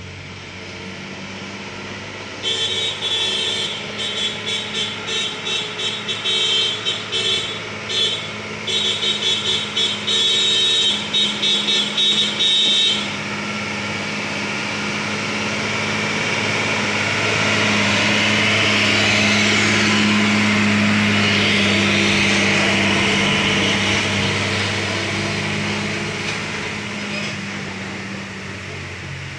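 Diesel engine of a container truck labouring in low gear up a steep grade, growing steadily louder as it nears and passes about twenty seconds in, then fading as it pulls away. For about ten seconds early on, a rapid pulsing high-pitched sound runs over it and cuts off suddenly.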